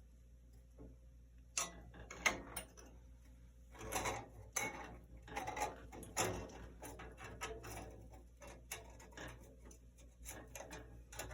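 Irregular clicks and clanks of metal parts being handled as a bandsaw blade is worked into place and the blade guards are slipped back in. It starts about a second and a half in and goes on in scattered bursts.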